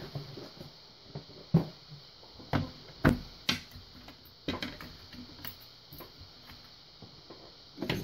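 Scattered light clicks and knocks of small hand tools and metal parts being handled, each a second or so apart, ending with a sharper knock as the lock cylinder is picked up off its wooden tray.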